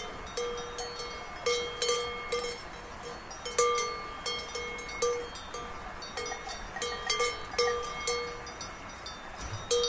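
A cowbell hung on a chain around a grazing cow's neck, clanking irregularly as the cow moves its head. It gives about twenty short metallic strikes, each ringing briefly at the same few pitches, with a short pause about a third of the way in.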